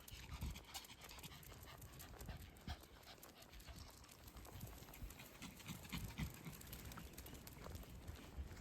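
A dog panting as it walks, with many quick light ticks that fit claws on the ground.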